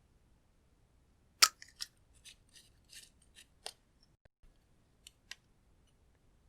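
Crisp snipping clicks: one sharp click, then a quick run of smaller clicks and snaps, and two faint clicks near the end.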